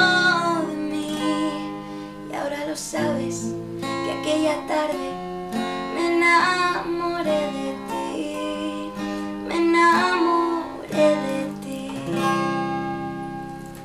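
Steel-string acoustic guitar playing the outro of a song, chords strummed and picked, with a woman singing in places. The last chord, struck about twelve seconds in, rings out and fades away.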